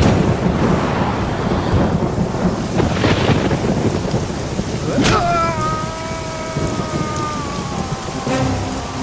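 Film soundtrack of heavy rain with rumbling thunder. About five seconds in there is a sharp crack, followed by a held tone of several pitches that slowly falls.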